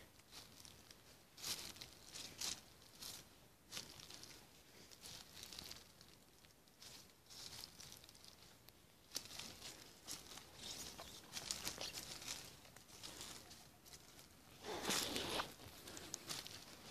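Footsteps through leaf litter on a forest floor: irregular faint rustles of leaves underfoot, with one louder rustle near the end.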